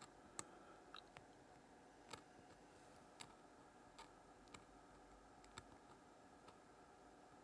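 Faint, irregular sharp clicks, about one a second, over a quiet steady hum.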